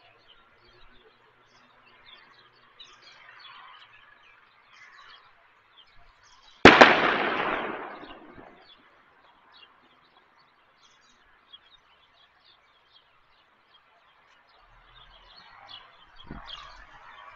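A single sharp bang about seven seconds in, echoing away over about two seconds, with birds chirping throughout.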